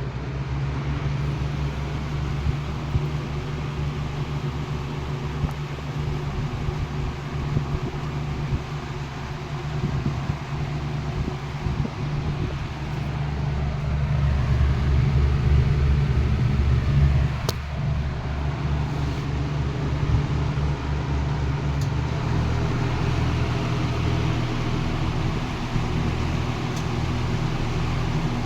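A Lakewood model T12 twin 12-inch box fan, driven by two small shaded-pole motors, running with a steady hum and a rhythmic low flutter. The shaking comes from its unbalanced blades at high speed. It gets louder about halfway through.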